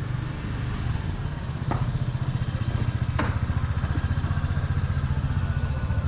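A vehicle engine running at idle, a low, steady rumble that gets louder about two seconds in, with a couple of sharp clicks.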